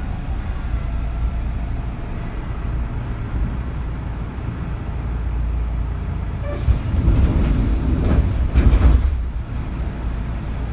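Kintetsu 3200 series electric train running, heard from inside motor car Mo 3205: a steady low rumble of wheels and running gear. It grows louder with rattling and clatter from about six and a half to nine and a half seconds in.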